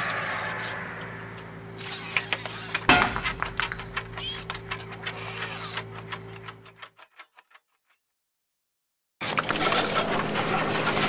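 Sound-designed mechanism noise of small animated robots. A ringing tone fades out, then irregular mechanical clicks and ticks play over a steady low hum, which stops about seven seconds in. After about a second and a half of silence, a dense mechanical clatter of many walking robots begins near the end.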